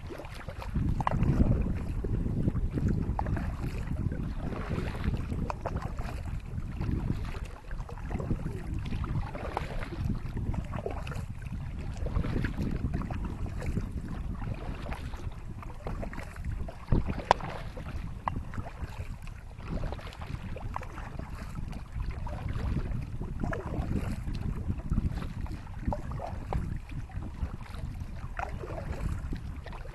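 Ocean Kayak Malibu 2XL sit-on-top kayak under paddle: irregular water splashes from the strokes and against the hull, over a steady low rumble of wind on the microphone.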